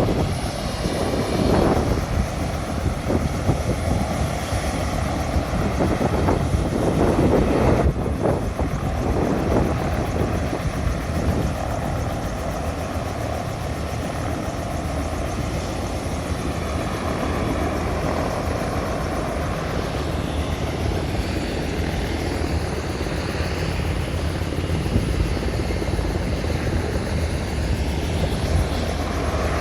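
Rescue helicopter's rotor and turbine running close by, a continuous beating rotor noise, somewhat louder for the first eight seconds or so and then steady.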